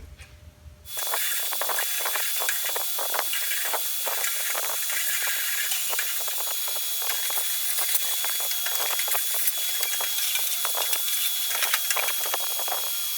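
Vacuum cleaner switched on about a second in and running steadily, a loud hiss with a thin high whine, with many small clicks and rattles as the nozzle works over a metal tool chest drawer.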